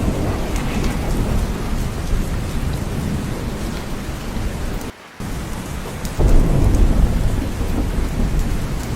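Steady heavy rain with a deep rumble of thunder underneath. The sound drops out briefly about five seconds in, and a louder thunder rumble comes in suddenly about a second later.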